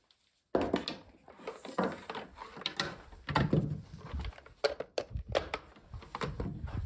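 Irregular handling noises from work on a car door: clicks, knocks and rustling that start suddenly about half a second in, with a few heavier thumps.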